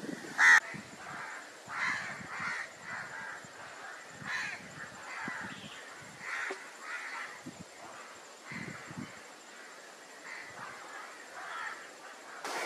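Birds calling again and again, with one loud call about half a second in.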